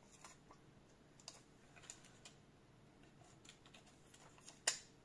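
Faint, scattered small clicks and ticks of fingers handling a plastic sheet of self-adhesive half pearls and pressing the pearls onto a paper card, with one sharper click near the end.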